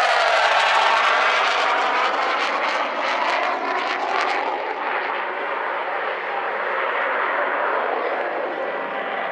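Jet noise from the twin General Electric J79 turbojets of an RF-4 Phantom II flying past. Its tone sweeps through the first couple of seconds, then grows duller after about four and a half seconds as the jet moves away.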